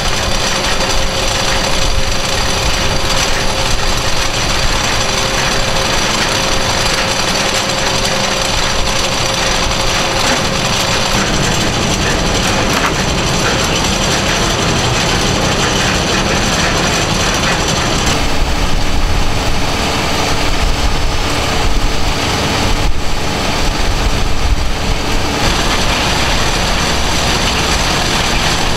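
A 36-ton beet cart's chain floor conveyor and cleaning rollers running: loud, steady machinery noise. The sound changes about 18 seconds in and changes back about 25 seconds in.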